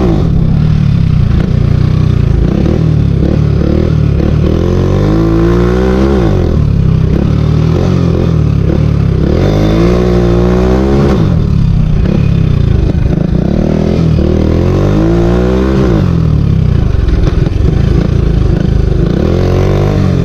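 Hero Honda motorcycle's single-cylinder four-stroke engine running loud through an M4 aftermarket exhaust with the dB killer removed. It revs up and drops back repeatedly as the bike is ridden, the pitch rising and falling every few seconds.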